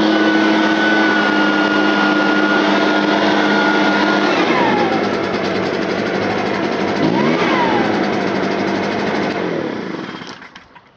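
Echo PB580T backpack leaf blower's two-stroke engine running at full throttle with the rush of its blowing air, dropping back to idle about four seconds in. It gets one short blip of the throttle a few seconds later, idles again, and is shut off near the end.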